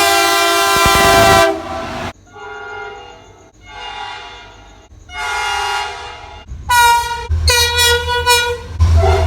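Train horns sounding a string of blasts, several tones at once, from different horns in cut-together clips: a long blast, three shorter ones, then a run of quick toots near the end over a low engine rumble.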